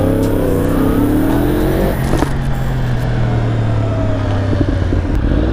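2015 Yamaha R1 inline-four with a Yoshimura exhaust running under the rider, its revs rising and falling for the first two seconds, then a steadier low drone at low road speed, with wind noise over it.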